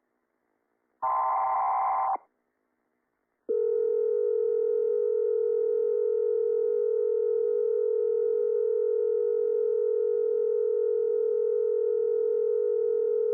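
Emergency Alert System-style alert signal. One burst of digital header data sounds about a second in, then after a short silence a steady alarm tone starts about three and a half seconds in and holds for about ten seconds.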